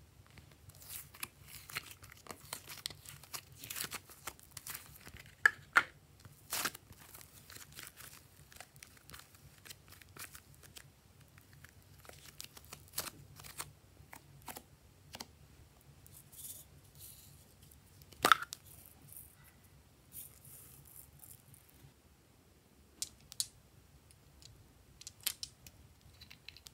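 Plastic slime containers and a small plastic toy bottle handled by hand: scattered crinkling and rustling with many small clicks, and a few sharper clicks, the loudest about 18 seconds in.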